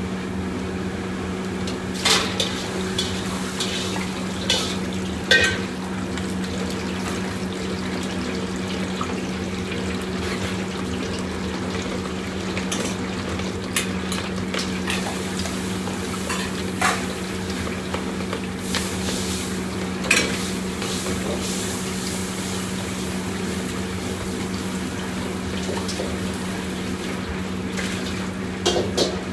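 Metal ladles and pots clanking at a restaurant wok station every few seconds over the steady low hum of the range.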